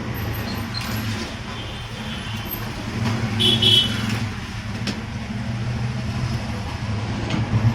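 Steady low mechanical hum with a noisy wash over it. A short high-pitched tone sounds about three and a half seconds in.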